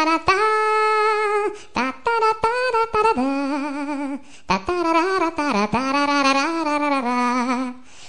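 Funny ringtone of one voice singing a "ta ra ra" tune, with wobbly, wavering held notes in phrases broken by short pauses.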